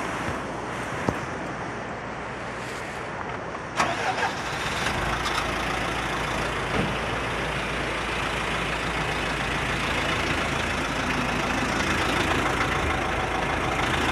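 Steady rushing noise, then a knock about four seconds in, after which a vehicle engine starts and runs steadily at idle.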